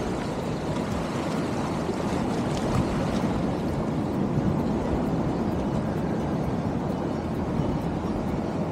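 Sea water washing and surging among shoreline rocks, a steady rushing noise, with wind buffeting the microphone.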